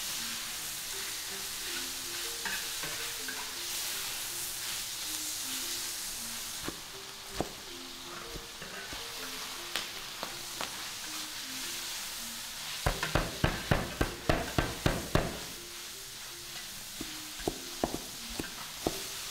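Food sizzling in a large iron wok as a spatula stirs it. About two-thirds of the way in, a cleaver chops fast on a wooden board, about a dozen quick strikes, and then a few slower chops near the end as green onions are cut.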